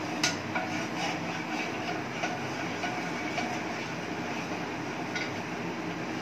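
Wooden spatula scraping and tapping around a nonstick frying pan as oil is spread in it, with one sharper knock just after the start and lighter clicks scattered through. A steady hum runs underneath.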